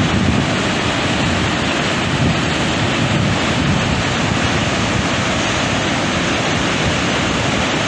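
Augrabies Falls, the Orange River's main waterfall, a loud, steady rush of falling water.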